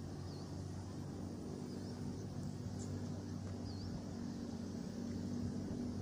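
Steady low drone of a distant engine, with faint short high chirps every second or two.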